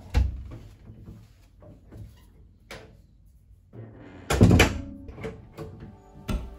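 Interior door with a lever handle: a thump as it shuts at the start and a few faint knocks of handle and latch, then a louder knock about four and a half seconds in as it is pulled open. Soft music comes in near the end.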